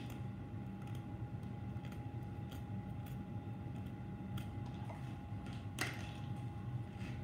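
Scattered light metallic clicks and scrapes as a hand tool works against the steel compound rest of a benchtop lathe, the sharpest click about six seconds in, over a steady low hum with a faint high whine.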